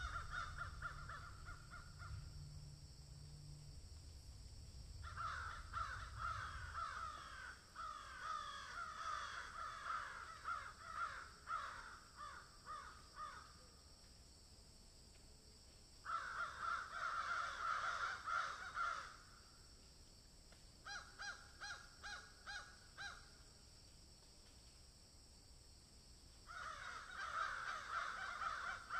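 Harsh bird calls in several bouts of rapid, repeated notes, over a steady high hiss; a low hum sounds for the first few seconds.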